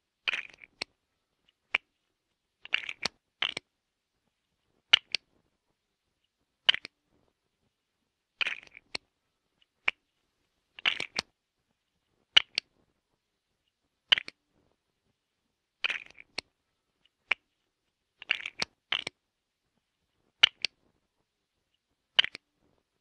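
Plastic Lego bricks clicking and clattering in short bursts, about one every second and a half, with dead silence between.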